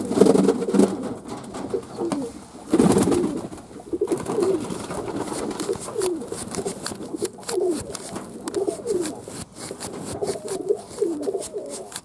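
Domestic fantail pigeons cooing over and over in short bending calls, with light clicks and a brief loud rush of noise about three seconds in.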